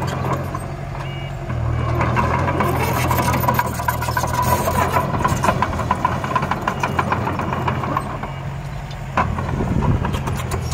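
Mini bulldozer's diesel engine running steadily, with rapid metallic clattering and a faint whine over most of the middle of the stretch.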